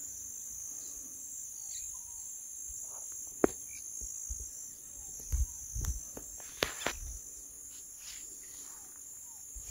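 Steady high-pitched insect chorus, shrilling without a break, with a few soft low thumps around the middle.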